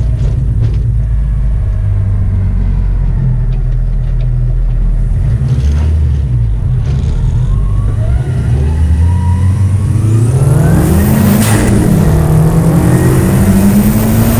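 Car engine running while driving, then accelerating hard: the engine pitch climbs from about two-thirds of the way in, dips briefly as if shifting gear, and climbs again, getting louder.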